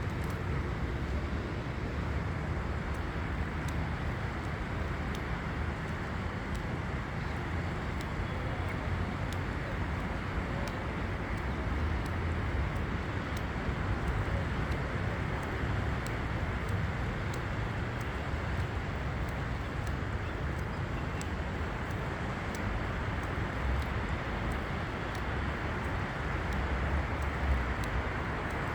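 Steady outdoor background noise: a low rumble under an even hiss, with no single clear source standing out.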